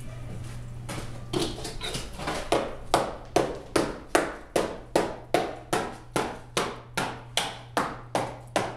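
Hand hammer striking an 18-gauge copper sheet dished over a steel ball stake. A few scattered knocks in the first second or so settle into a steady rhythm of about two and a half ringing blows a second.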